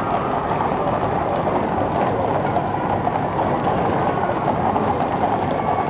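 Large crowd cheering in a steady roar.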